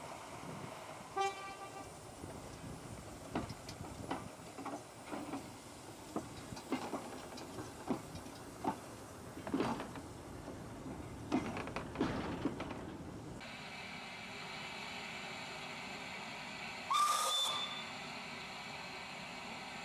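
Small saddle-tank steam locomotive moving slowly with goods wagons: a brief whistle toot about a second in, then irregular chuffs and clanks. Later a steam locomotive whistle sounds once, loudly and for under a second, about three-quarters of the way through.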